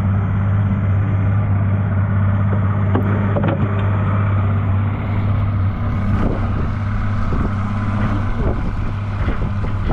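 A boat's engine running steadily under way, a constant low drone mixed with wind and water noise, with a few light knocks over it.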